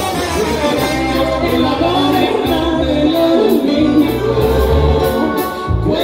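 Live Latin band playing with brass, keyboards, bass and drums at a steady beat, a voice singing the melody over it.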